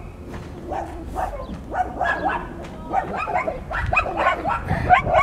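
Dogs barking repeatedly, upset, the barks coming thicker and louder toward the end.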